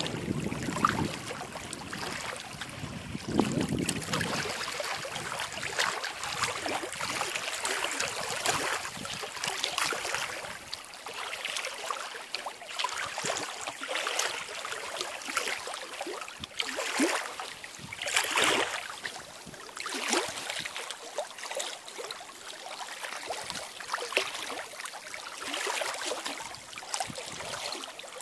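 Small lake waves lapping and splashing in an irregular patter. Wind buffets the microphone for the first few seconds.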